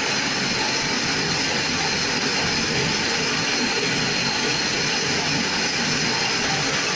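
Automatic silage baler-wrapper running while the round bale turns on the wrapping table and stretch film is wound on. It makes a steady, unbroken mechanical noise.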